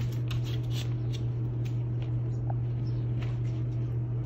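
A steady low hum with faint, irregular scratchy clicks scattered over it.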